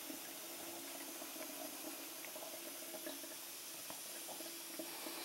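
Water running steadily and faintly from a clear plastic fridge ice-maker supply line into a stainless steel kitchen sink as the new line is flushed of manufacturing dust and debris.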